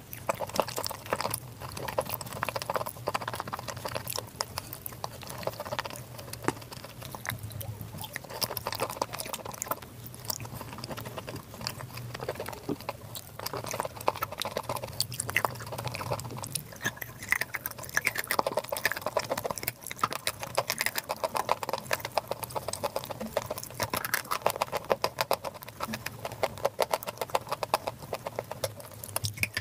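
Crunching and wet chewing of chalk chunks coated in grey clay paste, with many sharp crunches in quick succession mixed with squelching paste.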